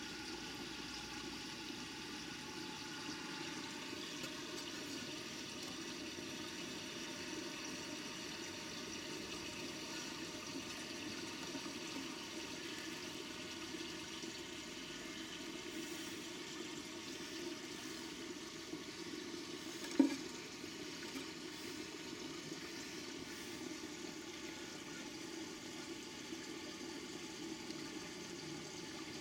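Steady rushing water in a garden koi pond, with a faint steady hum of several tones over it. One sharp knock about twenty seconds in.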